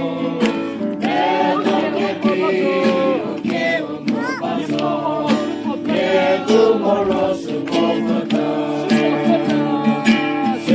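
A group of people singing a song together, accompanied by guitar.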